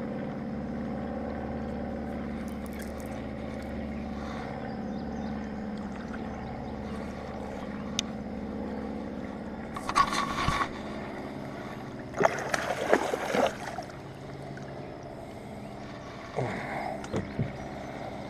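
A small channel catfish is tossed back into the river and hits the water with a brief splash about ten seconds in. A few more short splashing or knocking sounds follow, over a steady low hum.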